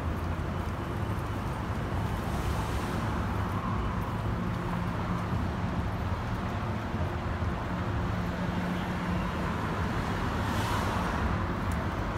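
City street traffic: a steady rumble of car engines, with tyre hiss from passing cars on a wet road swelling twice, about two seconds in and near the end.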